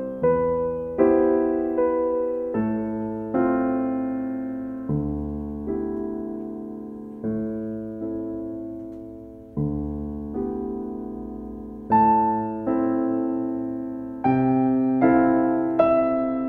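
Background piano music: slow, gentle notes and chords, each struck and left to fade before the next.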